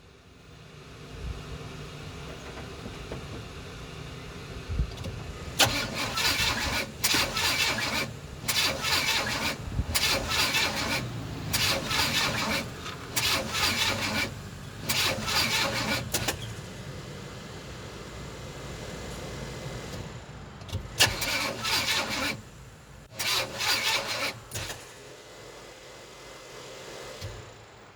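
Car engine cranking over repeatedly without catching, in a series of bursts about a second long with short pauses between them, over a steady low hum. It is a crank-no-start condition.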